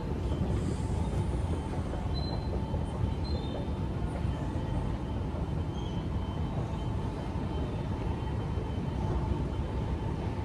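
Escalator running under the rider, a steady low rumble with a few faint steady whines above it.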